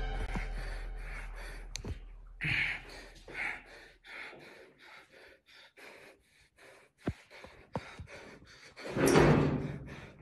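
Eerie background music fades out in the first two seconds. Then comes the steady shuffle of footsteps on a gritty, debris-strewn floor, with a few sharp clicks. A louder scrape or bump comes about nine seconds in.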